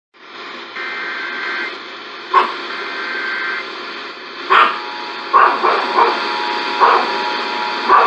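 Emergency Alert System monthly test heard through an FM radio's speaker: two bursts of the SAME data header's two-tone warble over a hiss, then from about five seconds in the steady two-tone attention signal. About seven loud short sharp sounds break in over the tones.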